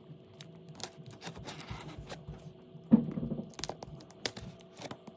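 Large cardboard shipping box being handled: scattered light clicks, scrapes and rustles of cardboard, with one louder knock about three seconds in.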